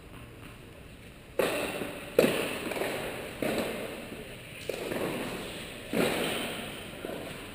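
Tennis ball hits in a rally, five sharp strikes about a second apart after a quiet start, each echoing through a large indoor tennis hall.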